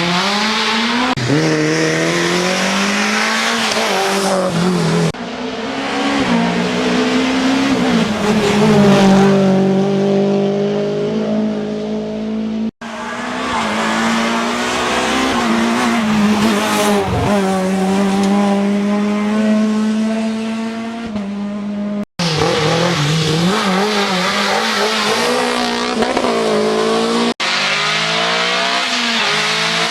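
Rally cars' engines revving hard as they drive the stage, the pitch climbing and then dropping at each gear change, heard in several short clips that cut off abruptly from one to the next.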